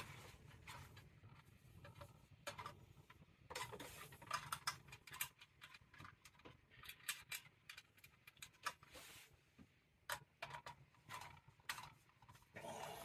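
Faint, irregular clicks and ticks of a screwdriver working the terminal screws on an oil boiler's aquastat as the wires are fastened back on.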